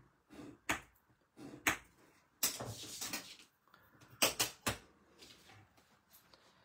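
Handling sounds on a craft desk: paper sliding and rustling on a cutting mat, with several sharp clicks and knocks as a metal ruler and tools are set down, the loudest cluster a little past four seconds in.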